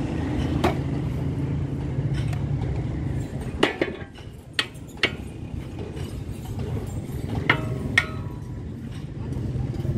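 Sharp metal clinks and knocks, about six of them, several ringing briefly: a steel radiator mounting bracket being handled and fitted against a truck radiator. Under them is a steady low hum that drops away about four seconds in.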